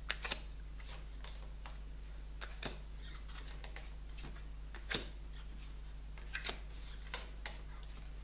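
Cards being laid down on a cloth-covered table one at a time: scattered light taps and slaps, irregularly spaced, the sharpest about five seconds in. A steady low hum runs underneath.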